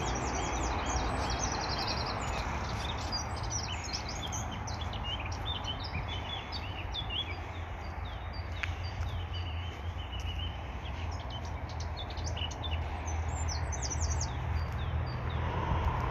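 Several songbirds singing together, a dense mix of short high chirps and trills, busiest in the first few seconds and again near the end, over a steady low rumble.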